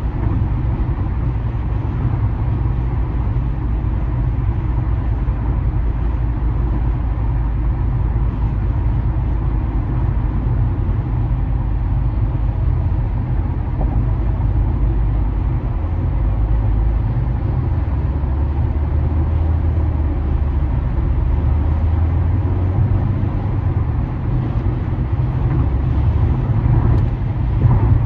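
Steady low rumble of tyres and engine heard from inside a car cruising on a concrete freeway, with a brief louder swell near the end.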